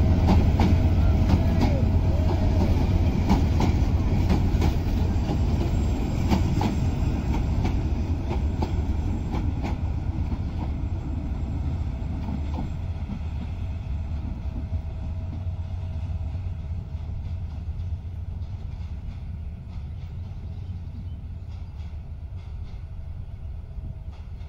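Diesel-hauled passenger train rolling past, its wheels clicking over the rail joints under a low rumble, fading steadily as the train moves away.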